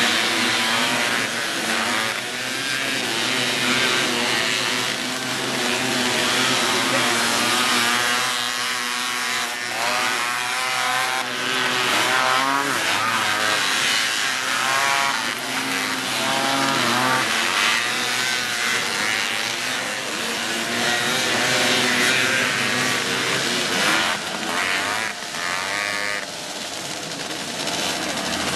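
Engines of several Honda Odyssey and Pilot off-road buggies racing, revving up and down in overlapping rising and falling whines.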